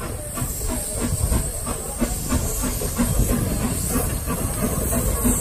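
4-4-0 steam locomotive Detroit & Lima Northern No. 7 working a train, its exhaust chuffing in a steady rhythm of about three beats a second over a steady hiss of steam, growing louder as it approaches.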